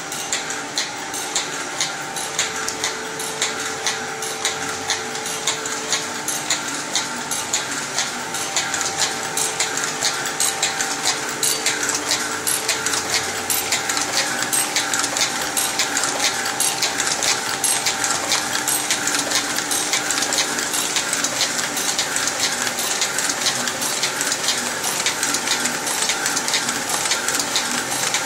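Bobst Domino 100 folder-gluer running a four-corner box test run: a steady, fast, even mechanical clatter with a few faint steady tones under it.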